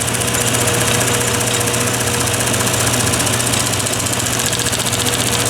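Lathe running steadily with a low hum, while an x-acto knife blade held against the spinning roll of tape cuts into it with a continuous hiss.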